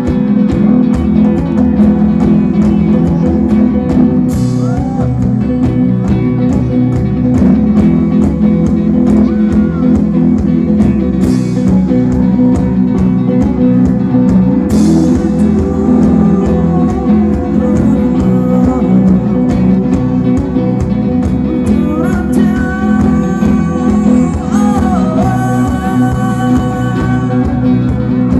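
Live band music over a PA: acoustic and electric guitars, keyboard and a drum kit keeping a steady beat, with a man singing.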